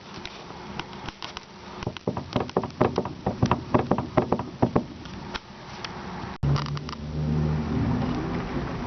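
Sharp, irregular knocks, several a second, from a Lada Kalina's steering rack, the sign of a worn rack. About six and a half seconds in, a car engine running steadily cuts in.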